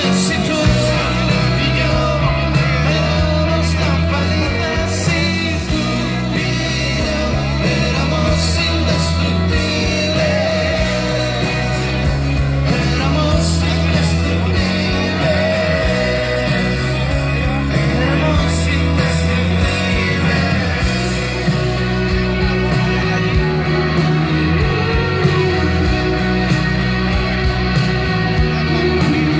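Live rock band playing: electric guitars and drums, with a man singing.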